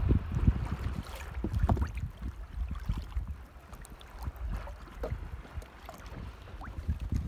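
Wind buffeting the microphone aboard a small boat, with water lapping and slapping against the hull in irregular small knocks and splashes. It is loudest in the first second, then settles.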